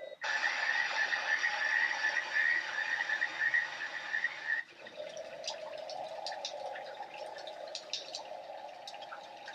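Nature sound recordings played by a white noise app: a steady, pulsing chorus of frogs, then about four and a half seconds in an abrupt switch to running water with scattered drips.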